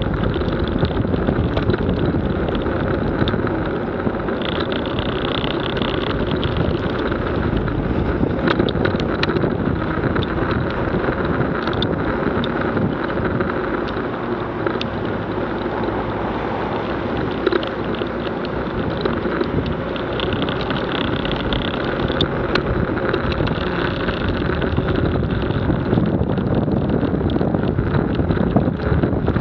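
Steady wind noise on an action camera's microphone as the vehicle it is mounted on drives along, mixed with engine, tyre and traffic noise on a wet road.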